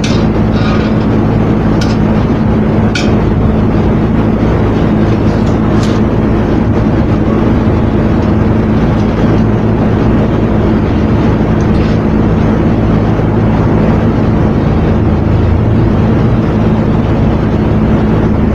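Oxy-acetylene torch flame hissing steadily while brazing a copper tube, over a steady low hum, with a few faint ticks in the first few seconds.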